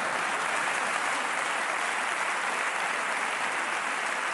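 Theatre audience applauding steadily after a comedy punchline.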